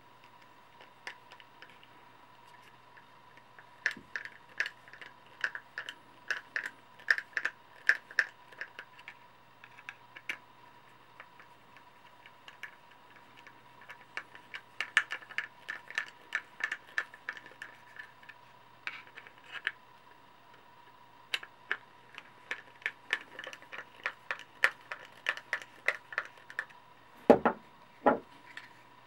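A hand screwdriver turning screws to mount a Tek-Lok clip on a Kydex sheath: runs of quick, sharp clicks, several a second. Near the end come two louder thumps as the sheath and tool are handled. A faint steady hum lies underneath.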